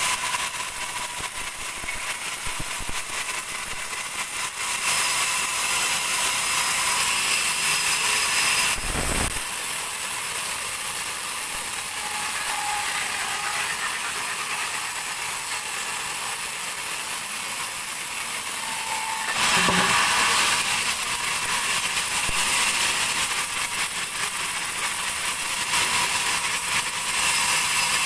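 Large sawmill bandsaw cutting a dry teak log: a steady, high, noisy cutting sound. There is a short low thump about nine seconds in, and the sound gets louder a little before the twenty-second mark.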